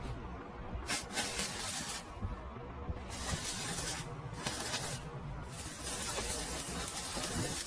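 MIG welding arc running in short bursts, stopping and starting several times, with a longer unbroken run in the second half.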